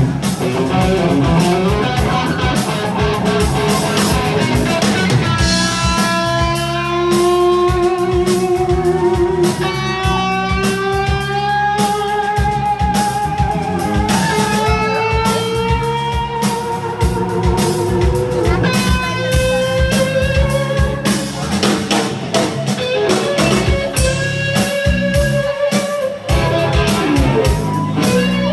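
Live electric guitar solo: long sustained notes that bend and slide slowly in pitch, backed by a steady drum beat.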